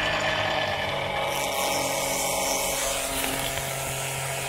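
Small electric oil pump running steadily with a motor whine, drawing old engine oil out of the car's engine and discharging it through a hose into a plastic canister.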